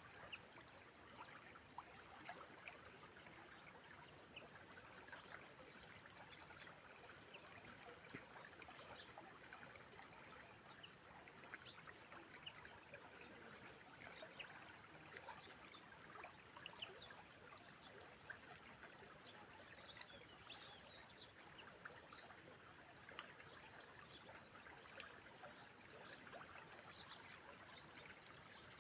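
River water flowing faintly, a steady babbling rush with many small trickling splashes.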